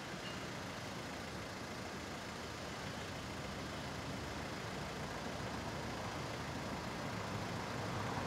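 City street ambience: a steady hum of road traffic, slowly growing a little louder.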